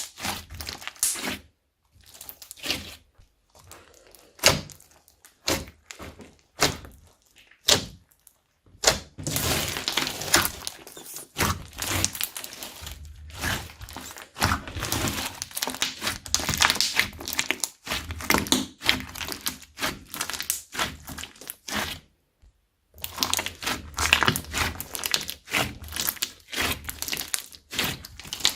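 Slime being mixed and squished by hand: irregular wet clicks, pops and crackles with short pauses, denser in the middle stretch.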